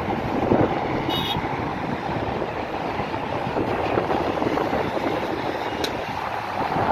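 Steady highway traffic noise from passing cars and buses, mixed with wind buffeting the microphone. A brief high-pitched tone sounds about a second in.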